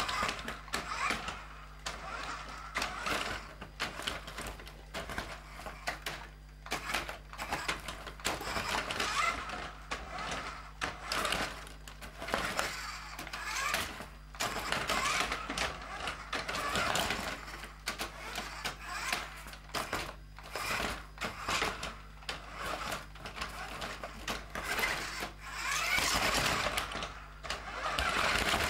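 New Bright Ram RC monster truck's battery-powered motor whirring as it drives back and forth over a patch of loose plastic bottle caps, with irregular clattering and clicking throughout as the caps are knocked about under its tyres.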